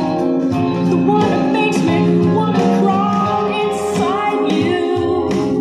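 A pop song with a singer over sustained instrumental backing, played at a steady, fairly loud level through the Sony FH-909R hi-fi system's 3-way speakers.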